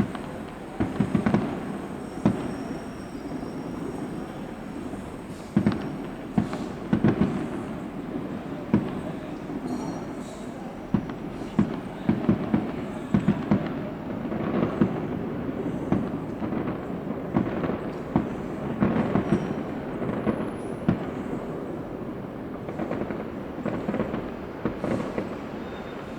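Fireworks display: shells bursting in irregular sharp bangs, sometimes several in quick succession, over a continuous rumble of echoing reports.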